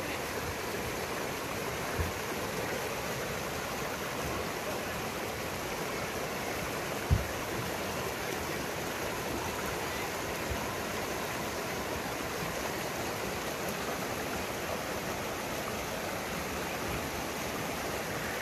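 Steady rush of running water, like a stream flowing past. There are two short low thumps, a small one about two seconds in and a louder one about seven seconds in.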